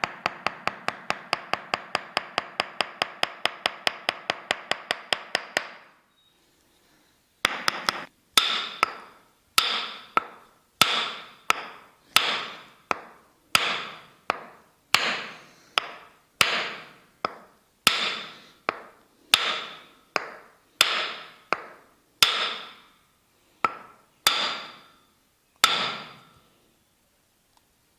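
Tok sen massage: a wooden mallet tapping a wooden wedge held against the body. It starts with fast, even taps, about seven a second. After a short pause about six seconds in come slower single strikes, about one and a half a second, each ringing briefly, and they stop a couple of seconds before the end.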